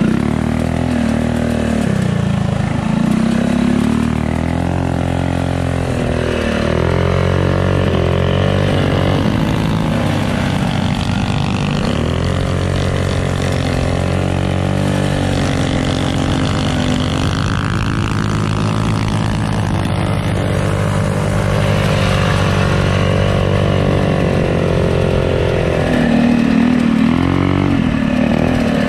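Mini bike's small single-cylinder four-stroke engine running hard close up, revving up and falling off again and again as it is ridden along a dirt trail.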